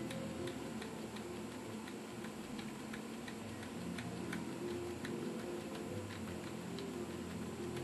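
Regular light ticking, about two ticks a second, over a low wavering hum.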